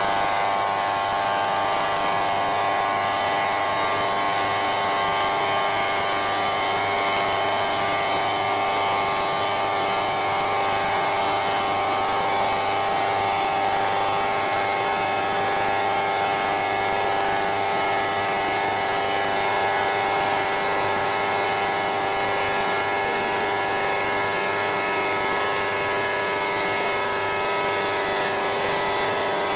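CNC stone router machining quartz stone, its spindle and motors running with a steady whine made of several held tones over a constant rushing noise.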